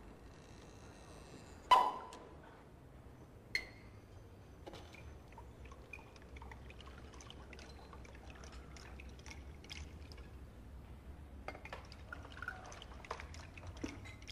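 A wine bottle being uncorked and poured: a sharp pop about two seconds in as the cork comes out, then a smaller click, faint glass clinks and wine trickling into stemmed glasses.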